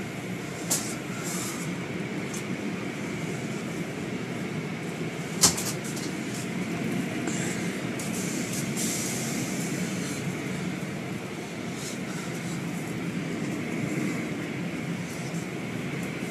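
Car wash machinery running steadily with a rumbling hiss and swells of high spraying. Two sharp knocks come about a second in and again about five seconds in.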